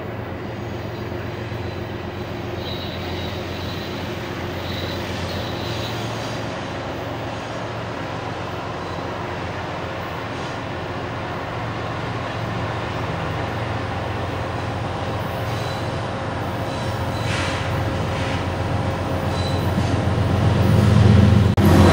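Two GE ES44AC diesel locomotives approaching at the head of a container stack train, their V12 engines making a steady drone that grows louder over the last few seconds as they near. A thin high wheel squeal on the curve comes and goes.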